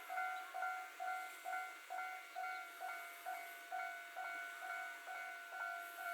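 Japanese railway level-crossing alarm sounding its standard electronic bell, a ringing tone struck about twice a second. It warns that a train is approaching.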